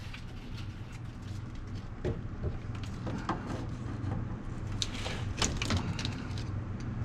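Scattered clicks and knocks of hands and tools working loose a truck's tail-light wiring harness, a few of them close together about five seconds in, over a steady low hum.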